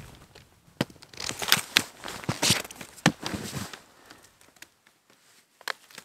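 Ski binding being unclipped by hand and the ski pulled up out of the snow: scattered clicks of the binding and short crunches of snow, busiest in the first few seconds, then a few isolated clicks.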